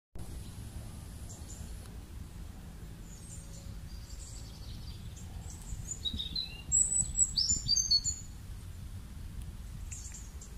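Small birds chirping and calling over a steady low outdoor rumble, with a quick burst of louder chirps about seven seconds in.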